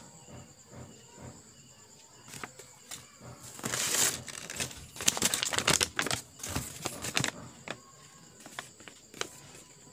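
Crumpled paper packing and a silver plastic bag rustling and crinkling as they are handled and pulled from a foam-lined box, loudest in a flurry from about a third of the way in to about three quarters through. Crickets chirp steadily underneath.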